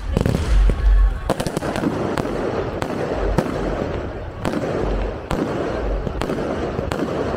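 Aerial fireworks going off: a quick run of sharp bangs and crackling from bursting shells, with heavy booms in the first second.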